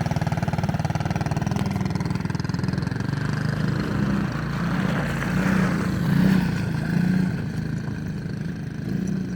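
ATV engine running while being ridden, its pitch and loudness rising and falling, loudest about six seconds in.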